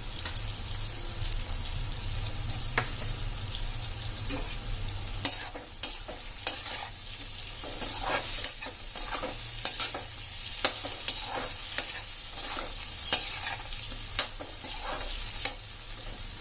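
Potato and capsicum sabzi sizzling steadily in a metal kadai. From about five seconds in, a slotted metal spatula stirs it, scraping and clicking repeatedly against the pan.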